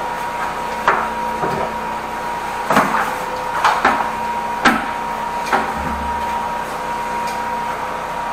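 High-pressure drain-cleaning jetter running with a steady hum and a thin high whine, under irregular sharp knocks and clacks every second or so.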